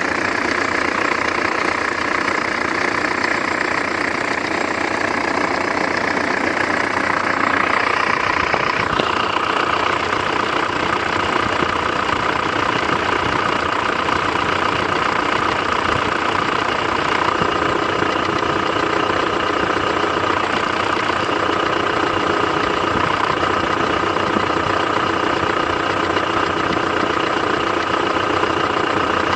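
Mitsubishi 4M41 3.2-litre four-cylinder diesel engine running steadily with a knock. About nine seconds in, the sound changes abruptly as a high hiss drops away.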